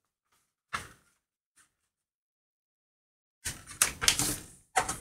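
Sheet of A4 paper rustling and being creased by hand as it is folded in half: one short rustle about a second in, then a cluster of rustles and scrapes near the end.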